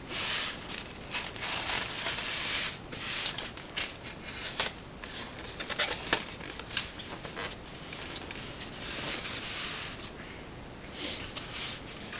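Styrofoam packaging being handled and pulled apart by hand: a run of scratchy rubbing and scraping with small clicks and knocks.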